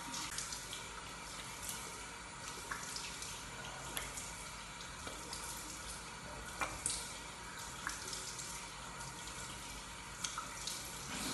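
Bathroom tap running into a sink, a steady hiss of water broken by light splashes.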